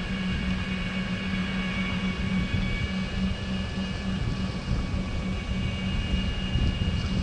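Golf cart driving along a paved road at a steady speed: a steady hum with faint high whining tones from the drive, over rumbling wind and road noise on the cart-mounted microphone.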